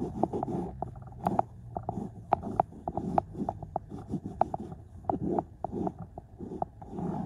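Cloths rubbing and scrubbing on a car's floor carpet to wipe up spilled paint: irregular scuffing with many sharp little knocks close by.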